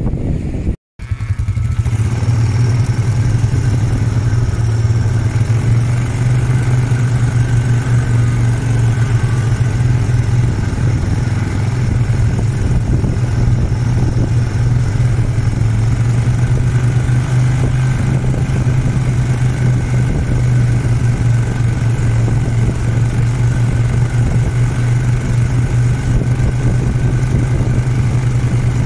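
Wind and lapping water that cut off about a second in. Then a motor vehicle's engine runs at a steady low speed, a constant drone that goes on without a break.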